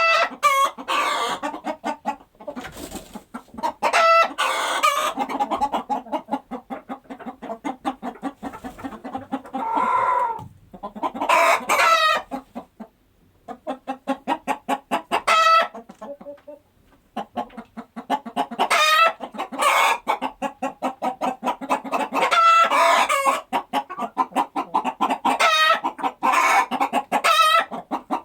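Chickens clucking in rapid runs of short clucks, with a couple of brief pauses.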